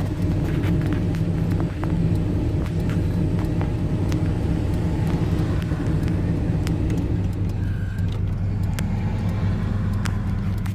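Chevrolet's engine running steadily, heard inside the closed cabin, with a constant knock.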